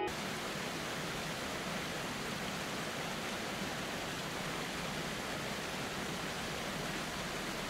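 Steady, even rushing of a large waterfall, the 83-metre Montmorency Falls pouring down its cliff.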